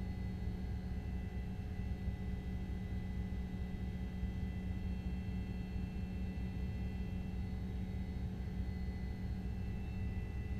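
Steady low drone with a constant hum and a few faint, thin high tones, unchanging throughout.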